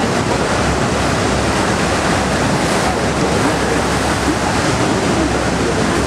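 Steady roar of Niagara's American Falls, close up, from water crashing onto the rocks at its base, with wind buffeting the microphone.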